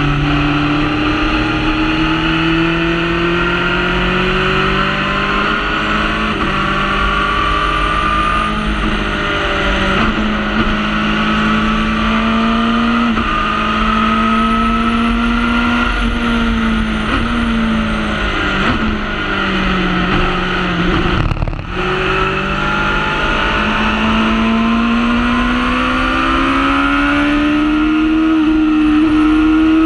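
Honda Hornet four-cylinder motorcycle engine of a Formula Predator's single-seater race car, heard onboard at speed: its pitch climbs under acceleration and drops back at each upshift. About two-thirds in it falls away through downshifts with a brief cut in sound, then climbs steadily again to the end.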